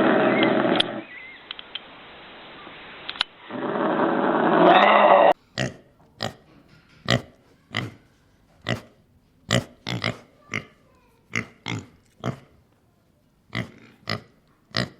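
Two loud stretches of harsh, rushing animal noise in the first five seconds, then a pig grunting in short, separate grunts, one every half second to a second.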